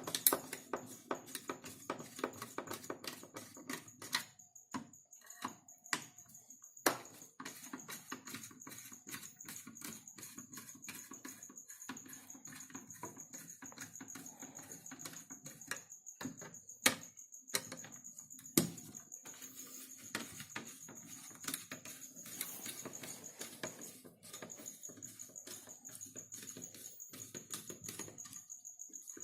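Scattered small clicks and taps of hands and tools working on a desktop CPU cooler fan as it is unscrewed from the motherboard, with a few sharper knocks now and then.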